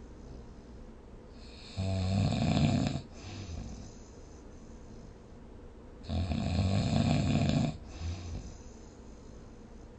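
A person snoring: two loud snores about four seconds apart, each lasting a little over a second, with a short weaker snort just after the second.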